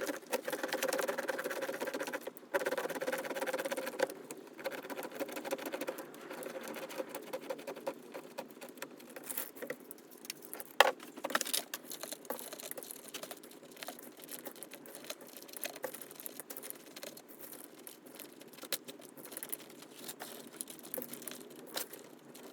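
Bar of household laundry soap being rubbed on a hand grater: fast, continuous rasping strokes, louder for the first four seconds and lighter after, with a single sharp knock about eleven seconds in.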